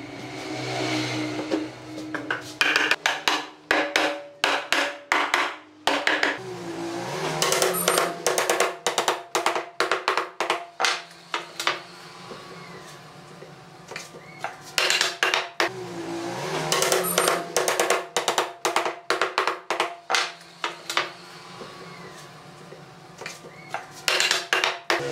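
Wooden mallet knocking pine boards down onto one another to close up glued edge joints, in runs of quick taps, over background music.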